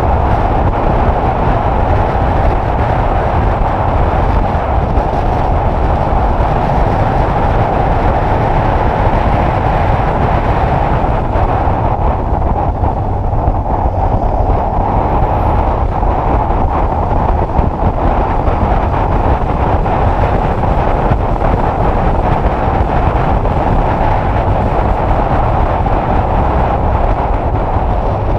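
Steady, loud wind noise on the microphone of a 2010 Honda CBF600 motorcycle under way, with the engine and road noise running underneath.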